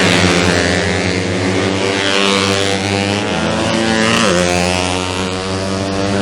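Several 125cc four-stroke underbone racing motorcycles running at high revs, one sweeping past with a swoop in pitch about four seconds in.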